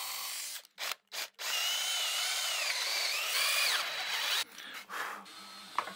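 Power drill with a twist bit boring through a poplar board: the motor runs, cuts out twice in quick short stops about a second in, then runs loud for about three seconds with its whine rising and falling in pitch before dropping off. A sharp click comes near the end.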